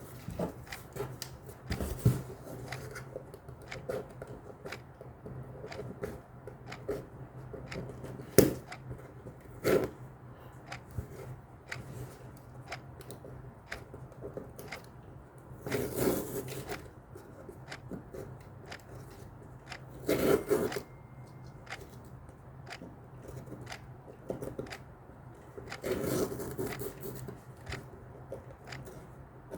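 Packaging being handled and unpacked: scattered rustles, scrapes and light taps, with a few longer, louder rustles along the way, over a steady low hum.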